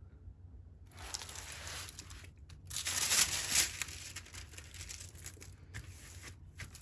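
Plastic cover film on a sticky diamond-painting canvas being handled, crinkling and rustling with a rough tearing sound that is loudest about three seconds in.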